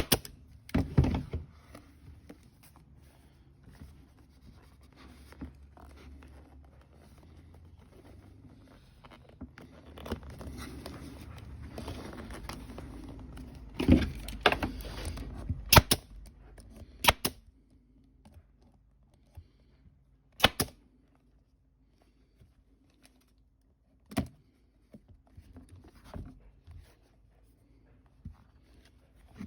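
Hands working the console armrest lid and its new vinyl cover: rustling and crinkling of the material, with a handful of sharp clicks and knocks spread through.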